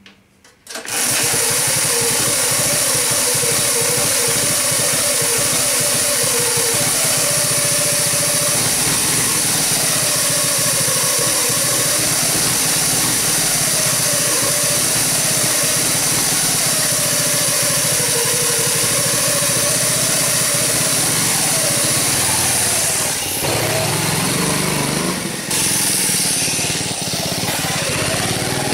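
Small Predator single-cylinder engine on a homemade mini motorcycle starting about a second in and then running loudly, with the drive chain and metal idler pulley whirring over the engine. The sound shifts about 23 seconds in.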